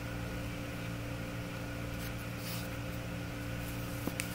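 Steady low hum with the faint hiss of room tone, and two faint ticks near the end.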